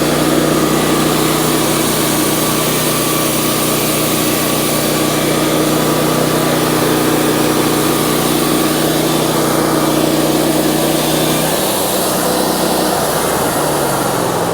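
Wood-Mizer LT40 band sawmill running, its 26.5-horsepower engine steady under load with a dense cutting noise from the band. About twelve seconds in the engine note changes, and near the end it settles lower and falls away.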